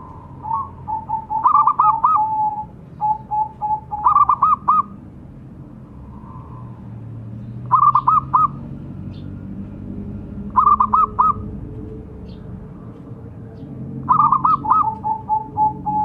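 Zebra dove (perkutut) singing: a quick rolling cluster of coos repeated about every three seconds, five times, some phrases trailing off into a run of lower, softer notes.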